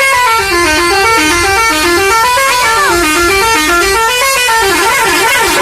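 Bus 'telolet' horn, a multi-tone musical horn, playing a loud, fast run of notes that step up and down in pitch without a break.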